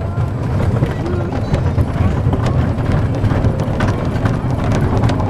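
Wheels of a 600 mm narrow-gauge train clattering over the rail joints with a steady low rumble, heard from on board an open passenger car.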